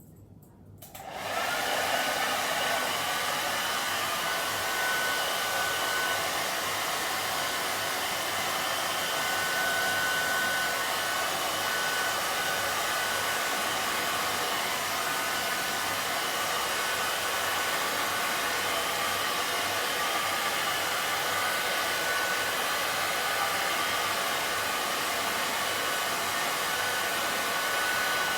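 Hand-held hair dryer switched on about a second in, then running steadily on medium heat, a rushing blow of air with a faint steady whine.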